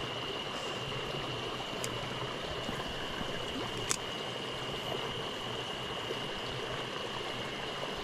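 Small mountain stream running over stones and a low cascade: a steady rush of water, with two faint clicks about two and four seconds in and a thin steady high tone.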